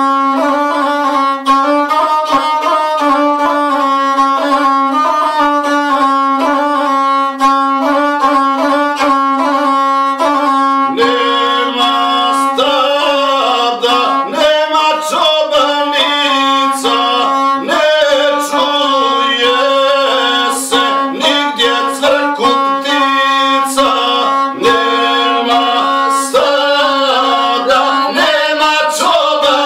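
A gusle, the single-string bowed Balkan folk fiddle, playing a wavering melody over a steady low tone.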